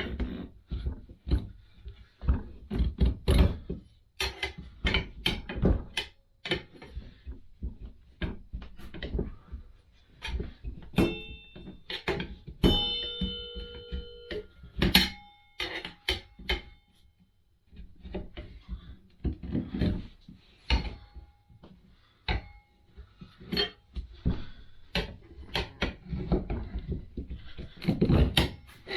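Tire spoons levering a tire bead off a motorcycle wheel rim: a string of irregular knocks and clanks of metal tools against the rim and tire. About halfway through come a few ringing metallic clinks.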